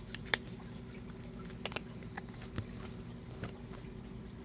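Scattered light clicks and taps of a mascara package being handled, over a steady low hum.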